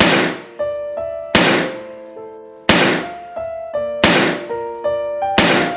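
Background music: sustained pitched notes under a heavy percussive hit that lands about every second and a third, five hits in all, each dying away before the next.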